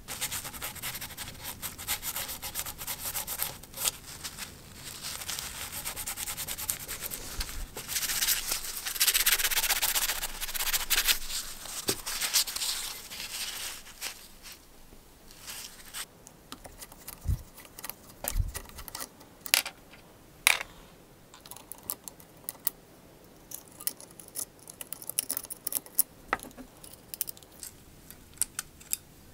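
Rubbing and scraping on the metal parts of a vintage Black and Decker D500 drill as they are cleaned by hand, loudest about 8 to 11 seconds in. After about 14 seconds it gives way to scattered light clicks and taps as the armature and housing are handled.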